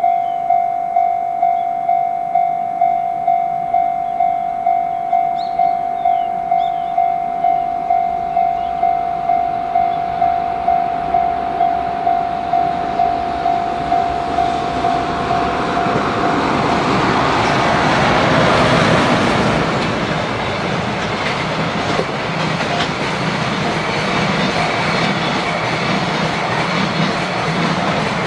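Japanese level-crossing warning bell ringing steadily, a little under two strokes a second. About fifteen seconds in, an EH500 electric freight locomotive hauling a second, unpowered EH500 approaches and passes, its rising rush of noise and wheels clattering over rail joints drowning the bell.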